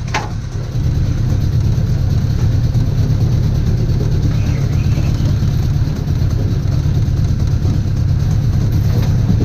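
Outboard motor on an aluminium dinghy running steadily under way, a little louder from about a second in. There is a brief sharp knock right at the start.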